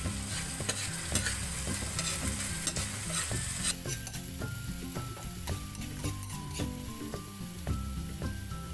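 Canned sardines frying in oil in a pan, being mashed and stirred with a utensil: a steady sizzle with many short scraping clicks of the utensil against the pan. The sizzle thins about four seconds in.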